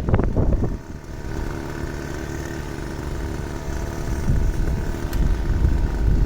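A small engine running steadily at an even pitch, after a rough, crackling burst of handling or wind noise in the first second, with one brief click about five seconds in.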